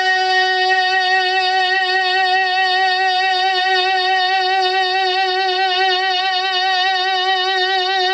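A naat reciter's voice holding one long, high sung note with an even vibrato, the pitch level throughout.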